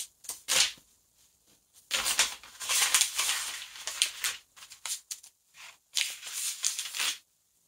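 Pages of a Bible being turned and rustled: papery swishes and crinkles, with a long rustle in the middle and a few quicker flips near the end, then they stop.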